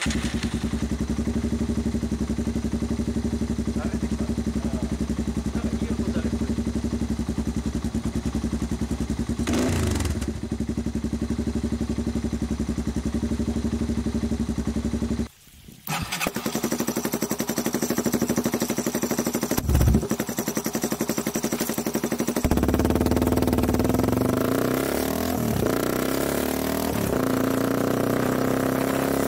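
Loud exhaust of a Yamaha Serow 225 single-cylinder four-stroke engine, fitted with an RSV aftermarket muffler and a SUDCO PWK28 flat-slide carburettor. It idles steadily with a short throttle blip, drops out briefly halfway, idles again with another blip, then is revved up and down repeatedly near the end.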